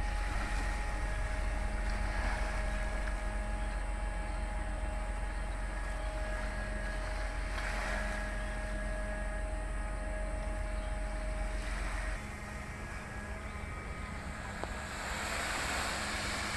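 Roll-on/roll-off ferry's machinery running with a steady hum and several faint steady tones. Wind rumbles on the microphone and eases off about two-thirds of the way through.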